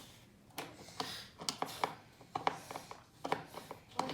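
Irregular light clicks and taps of a screwdriver and chair parts being handled during a small repair.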